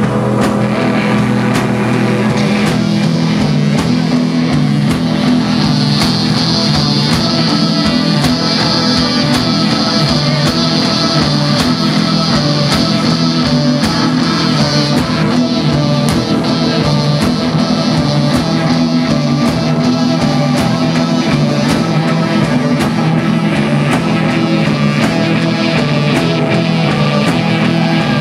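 Rock band playing live at full volume: electric guitar, keyboard, bass and drums, with steady drum hits over a repeating bass line. A high sustained tone sits over the band for several seconds in the middle.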